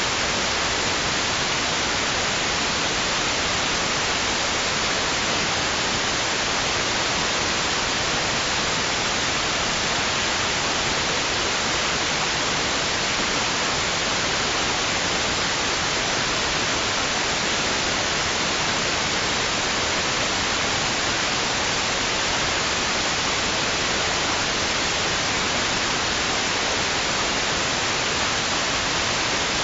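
Steady white noise: an even, unbroken hiss at a constant loudness with no rise and fall of waves.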